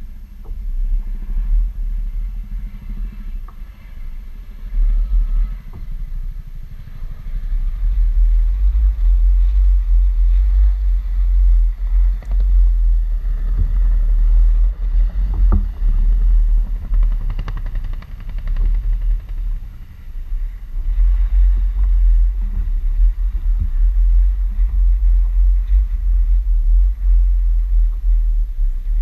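Wind buffeting the camera's microphone, a loud, gusty low rumble that rises and falls, with a few faint knocks from the kayak in the middle.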